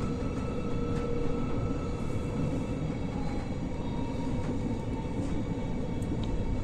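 Moving train heard from on board: a steady low rumble of wheels running on the rails.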